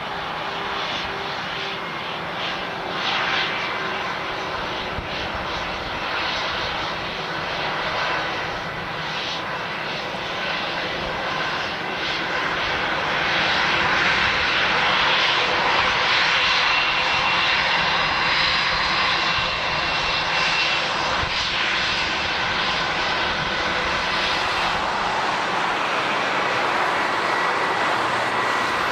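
Airliner engines running, a continuous noisy rush with a faint high whine, growing louder about halfway through.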